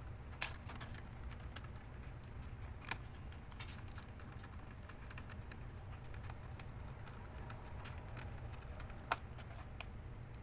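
Irregular small clicks and taps on a laptop's plastic case and parts, the loudest about nine seconds in, over a steady low hum.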